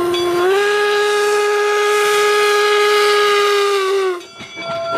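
Train whistle sounding one long blast of about four seconds, lifting slightly in pitch just after it begins and sagging a little as it stops.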